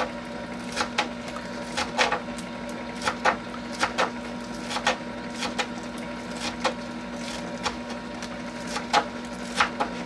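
Knife chopping green onions on a cutting board: irregular sharp knocks, often in quick pairs, about one or two a second. Under it, the steady hum of the kettle popcorn popper running.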